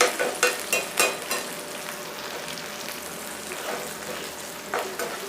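Chopped onions, green chillies, ginger and garlic sizzling in oil in a pan as they are stirred, with a few quick scraping strokes in the first second and a half, then a steady sizzle.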